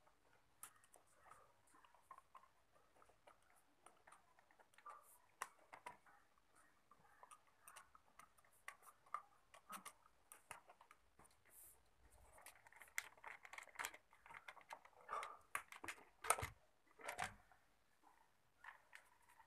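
Faint clicks and scrapes of a hand tool turning out the valve-cover bolts on a Bajaj Discover motorcycle engine. Near the end come a few louder clicks and knocks as the cover is worked loose and lifted off.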